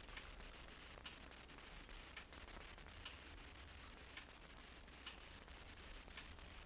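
Near silence: faint hiss with light rubbing and small clicks from fingers handling a closed aluminium-handled OTF knife.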